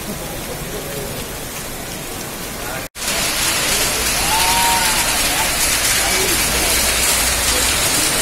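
Torrential rain mixed with hail pelting wet paving stones, a steady dense hiss. It breaks off for an instant about three seconds in and comes back louder and hissier, with hail falling on the paving and a plastic mat.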